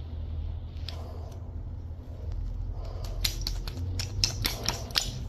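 Small metallic clicks and scrapes of a flathead screwdriver working the main jet out of a small-engine carburetor, with a quick run of clicks in the second half over a steady low hum.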